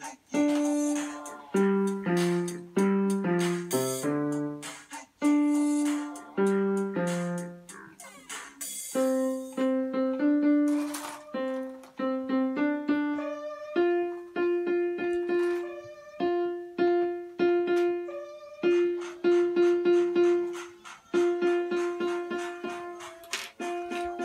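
Portable electronic keyboard played in a piano voice: a steady run of struck notes, each dying away, with lower alternating notes at first and, from about halfway, one note repeated again and again under a higher melody.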